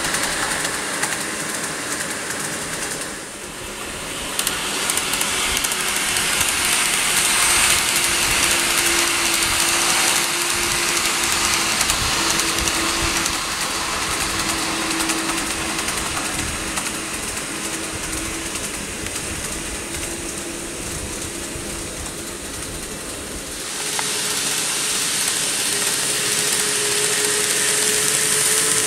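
KATO N-gauge model train running on layout track: a steady whirr from the motor under the hiss and rattle of the wheels on the rails. The sound changes abruptly about 3 seconds in and again near 24 seconds.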